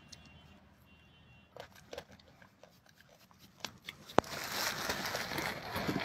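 Faint scattered clicks. About four seconds in comes a sharp click, then a steady rustling hiss: a phone being handled and swung around.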